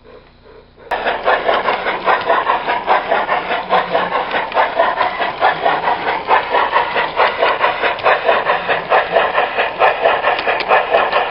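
Garden-railway camera car rolling along the track: steady wheel and drive noise with a fast, even clicking, starting suddenly about a second in.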